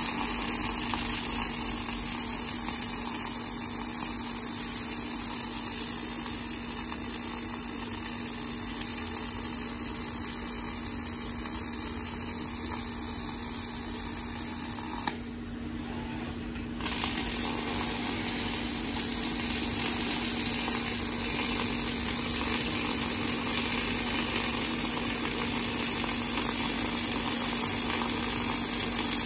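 A welding robot's arc welding torch running a continuous weld: a steady hiss over a low steady hum. About fifteen seconds in, the arc sound cuts out for about a second and a half, then starts again as the next weld begins.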